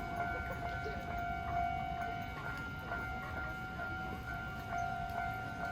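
Railway level-crossing warning bell ringing steadily as an electronic two-tone alarm, over a low background rumble.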